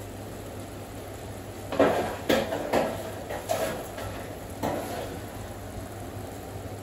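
Dishes and utensils clattering in a kitchen: about five sudden knocks between two and five seconds in, the first the loudest, over a steady low hum.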